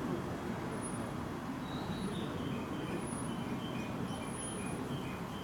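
JR East E001 Shikishima train approaching, a steady low rumble of the running train. From about two seconds in, a run of short high tones steps up and down over it.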